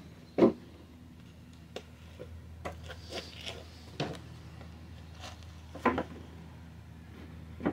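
Footsteps on a small wooden BMX ramp: a few separate dull wooden knocks and thuds as it is stepped on. The loudest comes about half a second in, and a close pair follows around six seconds in.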